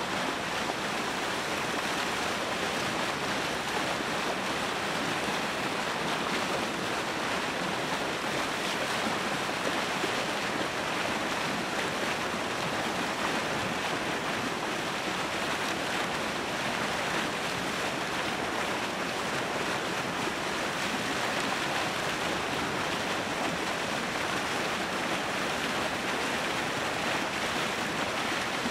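Water churning and splashing steadily at the edge of the ice: a continuous, even rushing with no breaks.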